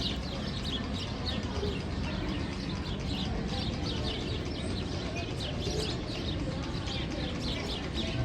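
Recorded bird chirps, part of the Magnum XL 200 tunnel's sound effects: a quick, steady run of short, high, falling chirps over a low rumble.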